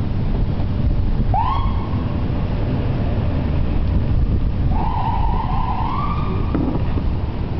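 Steady road and engine rumble inside a moving car. Over it an ambulance siren sounds twice: a short rising whoop about a second in, and a longer wavering wail from about five seconds in.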